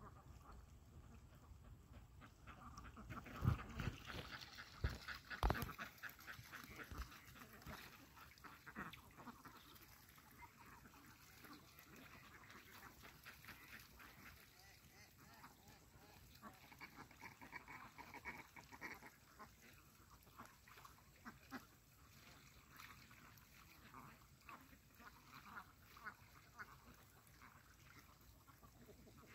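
Flock of domestic ducks quacking faintly, with scattered calls on and off. A few sharp knocks about four to six seconds in are the loudest sounds.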